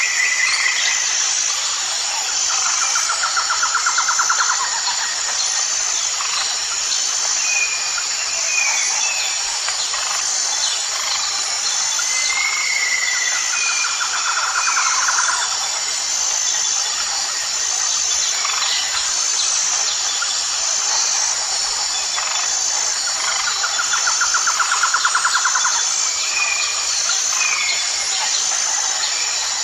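Tropical rainforest ambience: a steady high-pitched insect drone, with a rapid trilling call repeated roughly every ten seconds and scattered short bird whistles and chirps.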